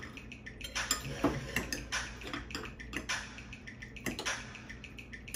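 Forks and serving spoons clinking and scraping on ceramic plates and bowls, in scattered sharp clicks with short scraping swishes between them.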